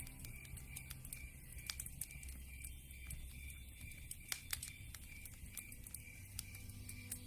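Wood fire crackling: scattered sharp pops and snaps over a soft hiss.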